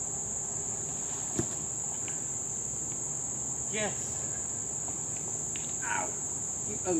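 Insects droning steadily in one high, unbroken pitch. There is a single sharp click about a second and a half in, and a short falling call near the middle.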